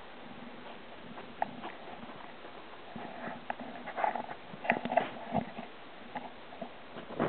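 A pet fancy rat's claws scratching and tapping on couch fabric and a blanket, with soft rustles as it burrows in; irregular small clicks, busiest about four to five seconds in, and a louder rustle near the end.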